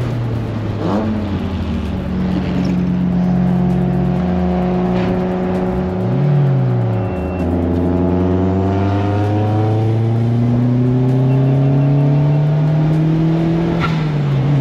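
Engine of a 2005 Mazdaspeed MX-5, a turbocharged four-cylinder, pulling hard under acceleration, its pitch climbing steadily through the gears. It drops sharply at an upshift about halfway and again near the end.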